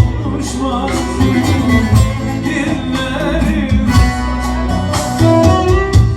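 Instrumental break of a Turkish folk song: a plucked saz (bağlama) melody over a steady beat.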